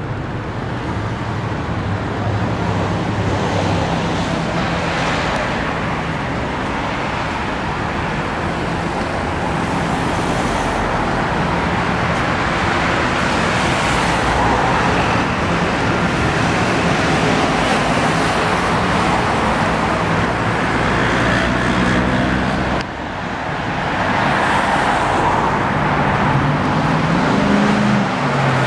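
Road traffic going by: a continuous rush of cars that swells and fades as vehicles pass one after another, over a low engine hum, with one engine rising in pitch near the end.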